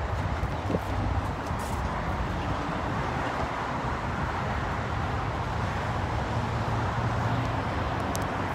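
Steady outdoor noise of road traffic, with a few faint clicks.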